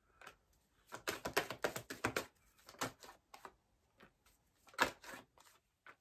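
Tarot cards being handled and laid down: a run of light clicks and taps, bunched about a second in, near three seconds and near five seconds.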